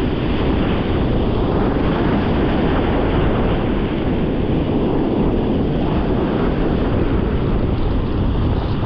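Wind buffeting the microphone over the rush of breaking ocean surf, a steady dense noise with no distinct events.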